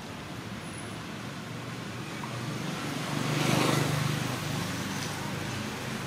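A motor vehicle passing by: engine and road noise swell to a peak about three and a half seconds in, then fade.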